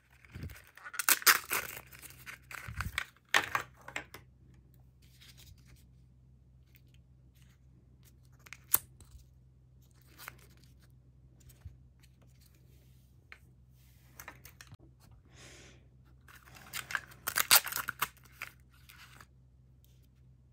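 Printed paper wrapping of a Mini Brands toy capsule being peeled and torn open, in two spells of a few seconds each, one just after the start and one near the end, with scattered small clicks and taps in between.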